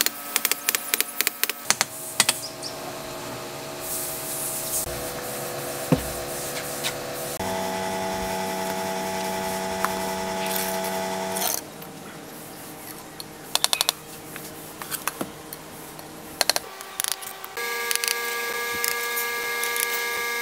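A small power tool running in spells, each at a steady whine of a different pitch, with clicking and scraping in between.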